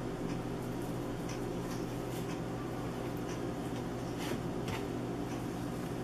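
Hands working seasoning onto raw chicken legs in a metal baking pan: faint scattered ticks and soft squishing, over a steady low hum in the room.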